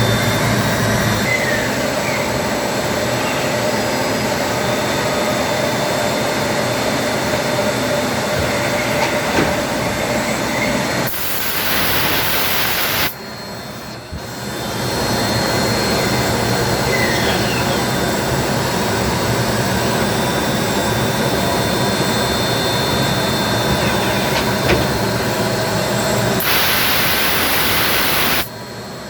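Mori-Say TMZ 8/42 eight-spindle CNC multispindle lathe running through its machining cycle with a steady, dense mechanical noise. About every 15 s, twice here, a sharp hiss lasts about two seconds and is followed by a brief drop in level, so the cycle repeats.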